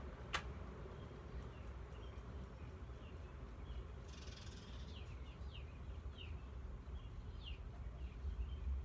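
48-inch TAT LeMans ceiling fan with its TAT motor running with a steady low hum. A single sharp click comes just after the start, and a few short falling chirps are heard in the middle.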